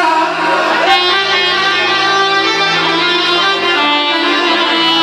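A live band playing an instrumental passage of Arabic music between sung lines: sustained melody notes over a steady accompaniment, with no voice.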